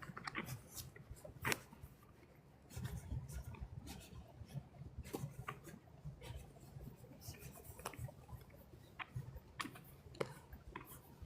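Dry fallen leaves crackling and scratching underfoot in irregular clusters of sharp clicks, over a low rumble.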